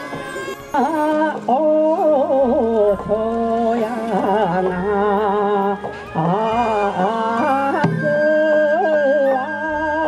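Japanese folk singing for a taue odori rice-planting dance: a voice sings a slow, wavering, heavily ornamented melody over a steady low drone, with a flute holding a long high note near the end and a few sharp knocks.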